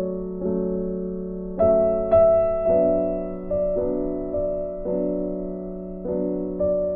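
Background music: slow, gentle piano chords, a new chord struck about once a second and left to fade.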